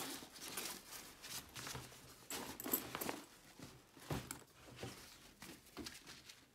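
Fabric of a gym duffel bag rustling and crinkling as hands rummage in its pocket and lift out the padded shoulder strap, with a couple of sharper clicks along the way.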